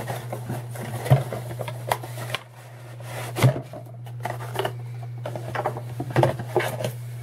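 Hands opening and handling a thin white cardboard box: scattered scrapes, taps and rustles of card over a steady low hum.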